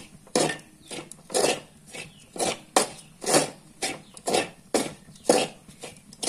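A metal spatula scraping and stirring a dry ground-coconut and spice masala around a metal kadai, in short, regular scrapes about two a second. This is the masala being mixed and fried with the tempering until it is ready.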